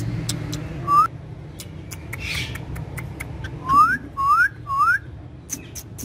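Indian ringneck parakeet whistling: one short rising whistle about a second in, then three quick rising whistles in a row past the middle, with soft clicks between.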